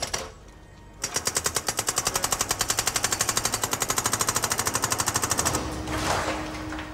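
Hydraulic breaker on a remote-controlled demolition machine hammering through reinforced concrete, a fast, even pounding of about ten blows a second that starts about a second in and stops after about four and a half seconds. Just after it stops there is a brief clatter of broken concrete falling.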